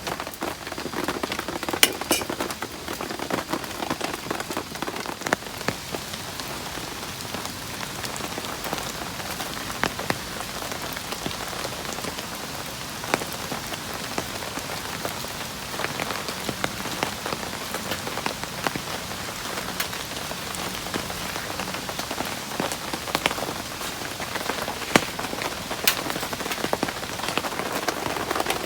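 Heavy rain falling steadily, with many separate drops striking sharply and irregularly.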